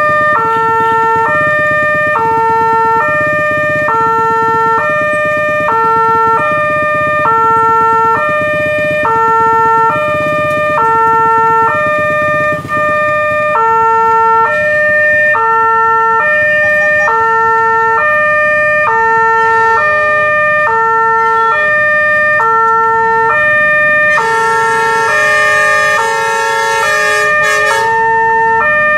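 Railway level-crossing warning alarm sounding its electronic two-tone signal, switching between a high and a low note in a steady repeating pattern, a sign that a train is approaching. Near the end a hiss with several more tones joins it for a few seconds.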